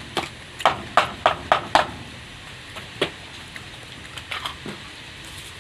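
Close-up eating: a quick run of sharp crunches, about four a second, as crunchy food is bitten and chewed. One more crunch comes about three seconds in, and a few softer ones follow later.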